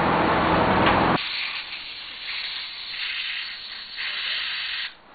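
Compressed air blasting from an air-compressor blow nozzle, blowing concrete dust out of freshly drilled holes. A loud rush for about the first second, then a thinner, fluctuating hiss that cuts off sharply near the end.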